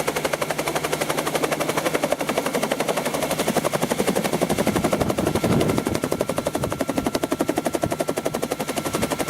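Bell 47 helicopter in flight, its two-bladed main rotor beating in a rapid, even pulse of about ten beats a second, swelling briefly about halfway through.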